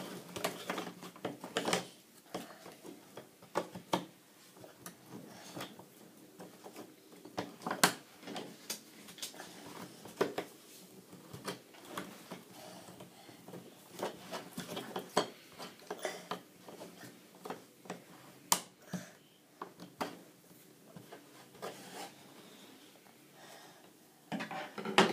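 Jigsaw puzzle pieces being slid across a tabletop, tapped down and pressed into place: scattered, irregular light clicks and taps with soft rubbing in between.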